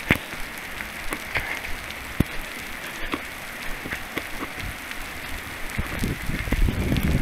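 Rain falling steadily, with sharp ticks of drops striking the camera. A low rumble builds near the end.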